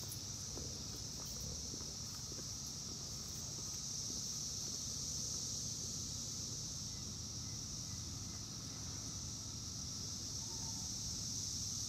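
Steady, high-pitched buzzing chorus of Brood X periodical cicadas, unbroken throughout.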